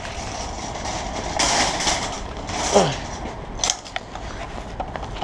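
Metal wire shopping cart rattling as it is rolled over pavement and pushed into a row of nested carts, with a sharp click a little past the middle as the coin lock on its handle is released.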